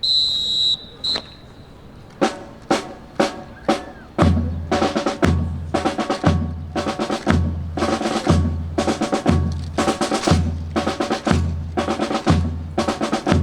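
Two blasts of a drill whistle, one long and one short. The drill team's percussion section of snare and bass drums then comes in with scattered strikes and settles into a steady marching beat, the bass drum hitting about once a second under quick snare strokes.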